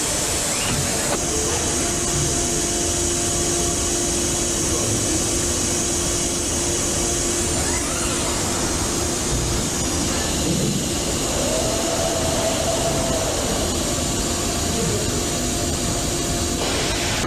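Steady machine hum and hiss of automated electric-motor stator assembly equipment on a factory line, with a faint held tone.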